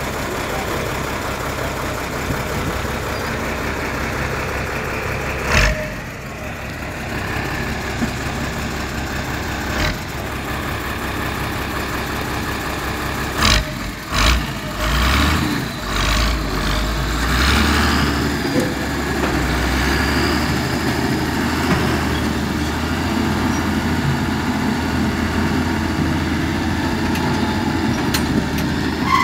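Truck tractor's diesel engine running at idle, with a few sharp knocks around the middle; about halfway through the engine note deepens and grows a little louder.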